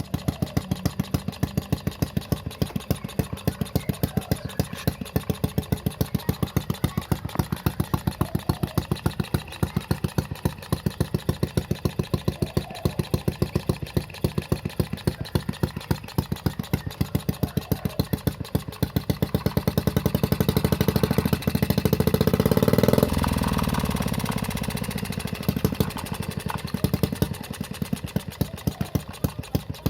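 Homemade mini four-stroke engine idling with a slow, even exhaust beat. About two-thirds of the way through it is revved up for a few seconds, then the throttle snaps shut and it settles back to idle.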